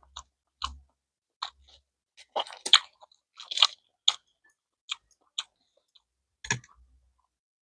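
Eating sounds: scattered short clicks of wooden chopsticks against the bowl and plates, with a run of crisp crunching about two to four seconds in, around the roasted seaweed being handled and eaten.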